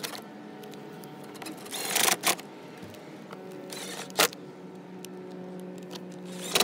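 Sharp clicks and a short rasp from a socket driver running 7 mm bolts back into a pickup's door switch bezel, over a steady low hum.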